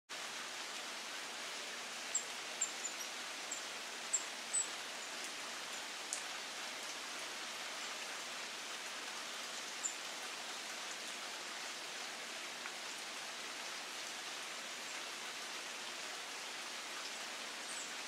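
A small bird's short, high chips, a quick cluster between about two and five seconds in and a couple more later, over a steady hiss like light rain.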